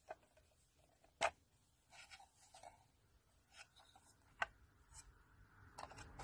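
Hands handling small plastic toy kitchen pieces and miniature cardboard food boxes: a few sharp clicks and taps, the loudest about a second in and again about four seconds in, with soft rustling between and a quick run of taps near the end.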